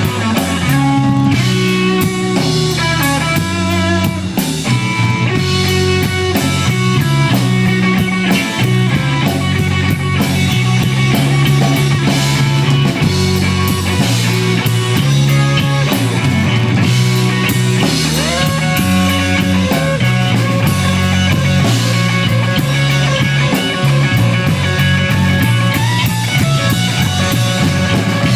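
Live blues band, electric guitar, electric bass and drum kit, playing a slow blues instrumental break with the electric guitar taking the lead over a walking bass line and drums.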